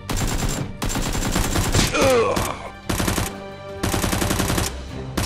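Automatic-gunfire sound effects dubbed over toy-blaster shooting, in four rapid bursts of about a second each, with background music underneath.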